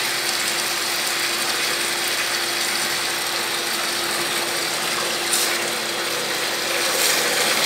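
A 1/2 hp peripheral electric water pump, rebuilt with parts from a 3/4 hp pump, running steadily with a constant motor hum and mechanical whir, working at pressure as it discharges water into a bucket.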